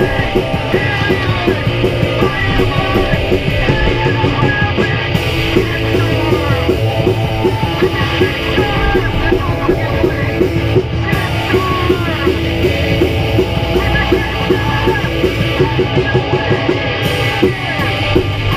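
Live rock band playing, drum kit and electric guitar, with a singer yelling through a megaphone.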